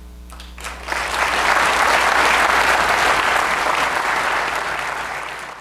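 Audience applauding, starting about a second in and fading out at the end.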